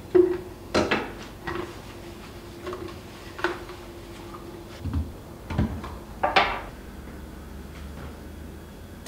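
A series of about seven short knocks and clunks as things are handled and set down in a kitchen, the loudest near the start and about six seconds in.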